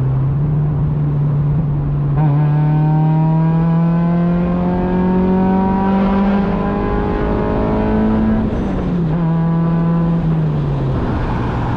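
Mazda Miata's swapped 2002 VVT 1.8-litre four-cylinder, breathing through a header and 2.5-inch stainless exhaust, pulling hard in third gear from inside the open cockpit. Its note climbs steadily for about eight seconds, then the revs drop sharply, and drop again near the end.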